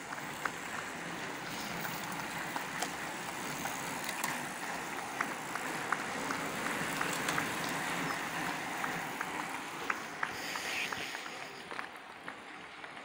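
Road bikes riding past in a steady stream: a steady hiss of tyres on tarmac and whirring wheels, with scattered sharp clicks throughout. The hiss eases off after about eleven seconds.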